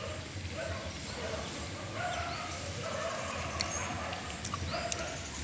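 A bird calling again and again in short notes, like farmyard fowl.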